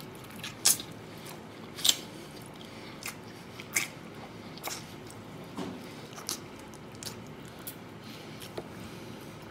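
Close-up eating sounds of a person biting and chewing a smoked pig's trotter, with sharp wet mouth clicks at irregular intervals. The loudest come about a second and two seconds in.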